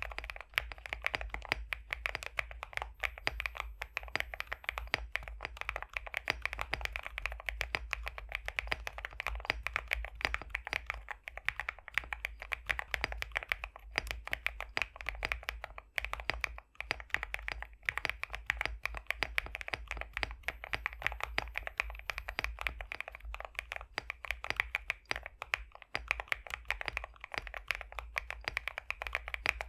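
Continuous fast typing on an Epomaker x Createkeebs High65 v2 custom mechanical keyboard with BSUN X pre-lubed linear switches: a dense run of thocky, creamy keystrokes with a few brief pauses.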